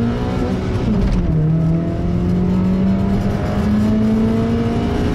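Car engine running under load: the revs climb, drop sharply about a second in as at a gear change, then rise slowly again.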